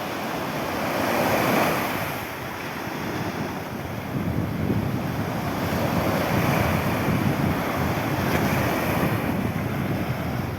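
Sea waves breaking and washing, with one wave swelling up about a second in. Wind buffets the microphone in low rumbles from about four seconds on.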